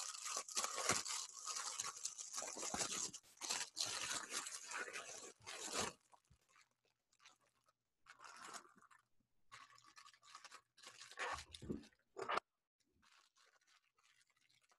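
Packaging crinkling, crunching and tearing as a mailed package is unwrapped by hand: dense for about six seconds, then in short separate bursts, stopping a couple of seconds before the end.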